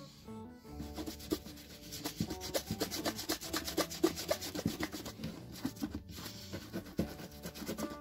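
Hand shoe brush scrubbing black wax polish into a leather boot in quick, repeated strokes, with background music underneath.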